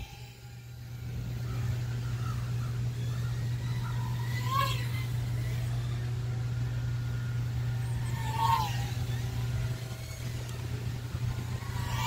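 Flywoo Nano Baby 1S micro FPV quadcopter's motors and propellers whining, rising and falling in pitch with throttle bursts about four and a half, eight and a half and twelve seconds in, over a steady low hum.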